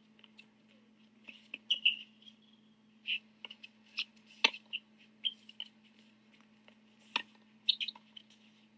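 Tennis rally on a hard court: sneakers squeak in short high chirps throughout, and a racket strikes the ball with sharp pops about four and a half seconds in and again about seven seconds in, over a steady low hum.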